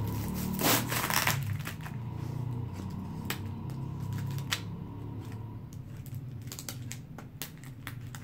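Scissors cutting through plastic packing tape and cardboard on a parcel: a run of sharp snips, with a louder crinkle of tape about a second in.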